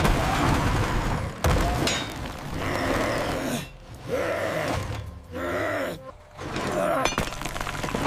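Cartoon sound effects of a concrete block wall crashing down: a loud crash at the start and a second about a second and a half in, then three strained groans from a character holding up the heavy wall.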